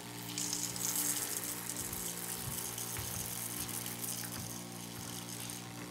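Cheap 12 V RV water pump running with a steady hum as it self-primes, water hissing and spraying through it from about half a second in as it starts to pump from the jug.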